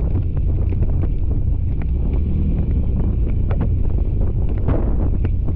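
Wind buffeting the microphone: a loud, steady low rumble with a few faint ticks scattered through it.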